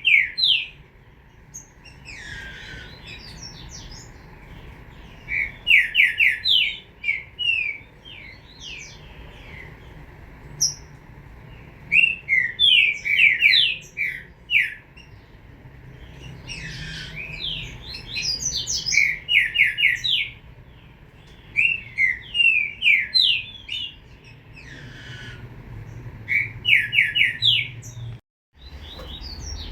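Young green-winged saltator (trinca-ferro) singing: bursts of quick, clear notes every few seconds, with a brief dropout in the sound near the end.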